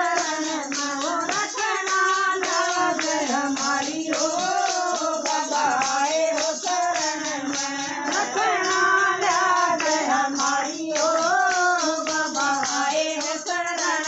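Hindi devotional bhajan: a singer holds a slow, sustained melody over steady, regular percussion.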